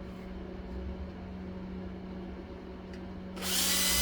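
A low steady hum, then about three and a half seconds in a handheld power tool starts up with a loud, even whirring hiss.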